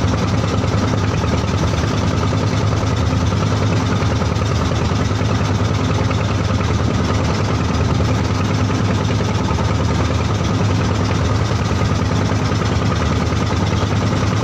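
Wooden fishing boat's inboard engine running steadily under way: a constant, unbroken drone.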